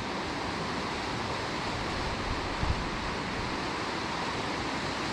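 Steady, even rush of water pouring or falling, with no breaks, and a small knock a little over halfway through.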